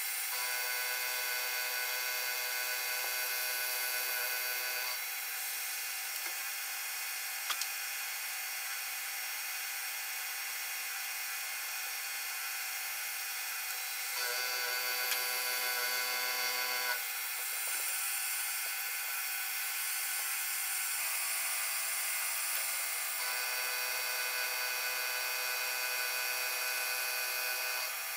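Mini metal mill's end mill cutting a brass block, with the mill's steady motor whine and cutting noise, sped up to four times normal speed. Its set of tones changes several times.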